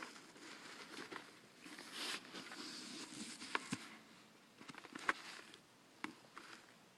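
Faint handling noises as a motorcycle helmet is turned over and its padding inspected: soft rustling and a few light clicks and taps, the clearest about five seconds in.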